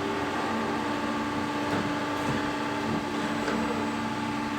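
CNC pipe bending machine running with a steady electric hum.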